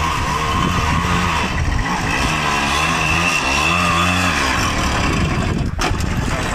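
Small moped engine running under a rider, its revs rising and falling, growing close as the bike comes up to and passes right by. A brief thump near the end.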